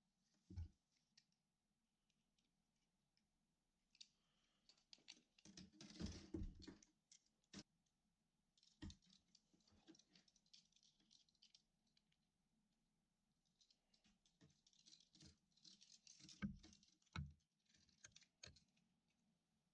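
Faint, scattered clicks and rustles of electrical wire being handled, stripped and pushed into a push-in lamp socket (tombstone), with a cluster of handling noise around six seconds in and several sharp clicks near the end.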